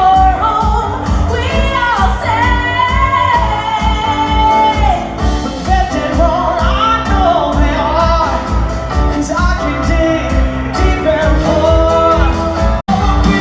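Music with singing over a steady beat, which cuts out for an instant near the end.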